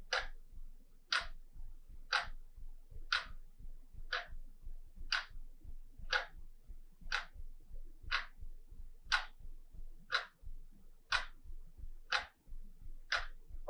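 Wall clock ticking steadily, one sharp tick each second.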